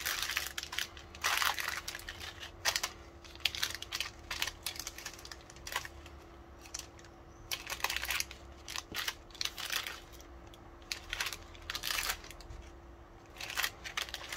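Small sealed clear plastic bags of tiny black laptop screws crinkling in irregular bursts as they are handled and squeezed, the screws shifting inside.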